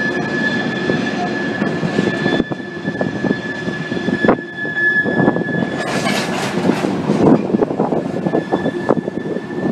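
Loaded coal train's hopper cars rolling past, with a steady high-pitched wheel squeal and a run of clacking and knocking from the wheels. The knocking grows busier from about halfway through.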